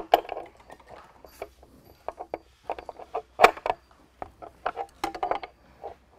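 Open-end wrench loosening the nut of a carriage bolt through a wood block: irregular metal clicks and clinks of the wrench on the nut, the loudest about three and a half seconds in.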